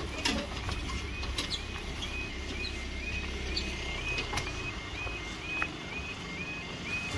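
Level crossing warning alarm (yodalarm) sounding its repeating two-tone warble, about two notes a second, each note stepping up in pitch. A few light knocks and a low steady rumble sit underneath.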